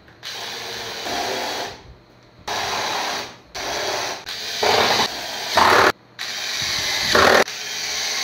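Cordless drill-driver driving screws into the wood, in about six short runs of a second or so each with brief pauses between. The runs mostly grow louder as each screw bites in and seats.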